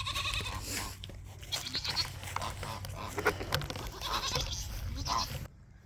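Goats bleating in short calls, among scattered knocks and rustling.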